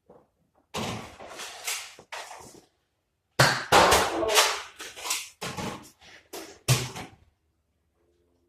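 Two bursts of rapid knocks, clatters and scuffles from a Nerf blaster fight in a garage, with a heavier bang near the end.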